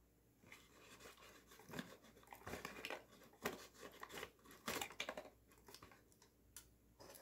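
Paper crinkling and rustling with light crackles and taps, as a small homemade paper mini bin is lifted by a grey arm and tipped into a larger paper container. The handling is busiest in the middle and dies down near the end.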